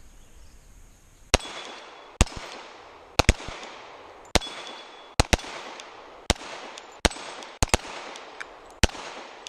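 Glock pistol shots from two shooters firing at a steel dueling tree. About a dozen sharp cracks start about a second in and come at an uneven pace, some in quick pairs, each with a short ringing tail from the steel plates being hit.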